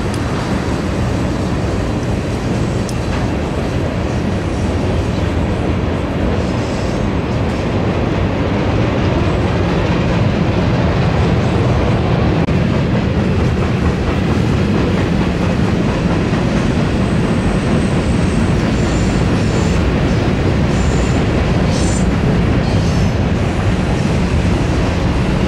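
Freight cars of a manifest train rolling past, with a steady loud rumble of steel wheels on the rails. Faint, brief high-pitched wheel squeals come several times in the second half.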